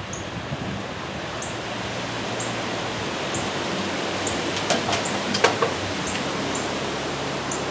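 Strong gusting wind rushing through the trees, a steady noise. Two sharp clicks come about five seconds in, and a faint high chirp repeats about once a second.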